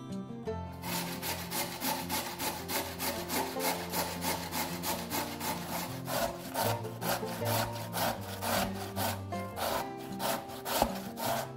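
Raw peeled potato rubbed down a stainless steel box grater in quick, even rasping strokes, about three a second, starting about a second in. Soft background music underneath.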